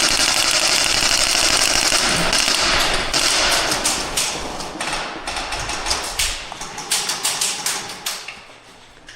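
Airsoft guns firing full-auto: a long unbroken string of rapid shots for about the first three seconds, then shorter bursts and single shots that thin out and fade near the end.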